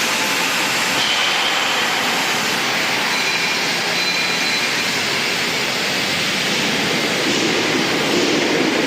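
Arc welding in progress: a steady, unbroken hiss-like noise with no pauses.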